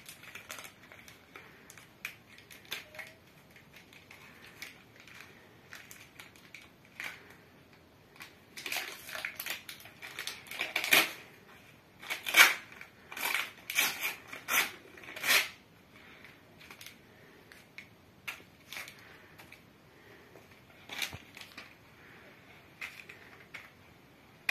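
Paper sticker packets being crinkled and torn open by hand and the stickers inside flicked through: scattered soft crackles, with a run of louder crinkling in the middle.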